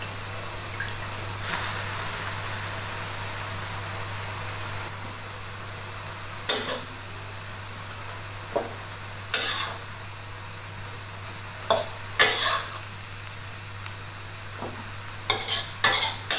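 Metal wok spatula scraping and clanking against a carbon-steel wok as rice vermicelli is stir-fried with cabbage and egg, over a steady sizzle of frying. The hiss swells about a second and a half in, and the scrapes come in short strokes from midway on, several in quick succession near the end.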